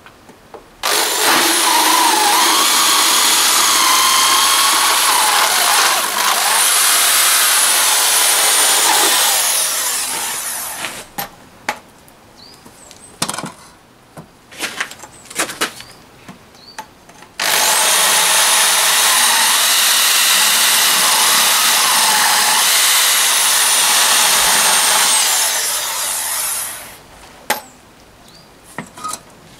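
Corded Bosch electric drill with a 2-inch woodwork cutter on an extension tube boring into a Thermalite aerated-concrete block. It runs in two long spells of about ten seconds each, starting about a second in and again past the middle, with the motor's pitch wavering under load. Knocks and handling noises come between the spells.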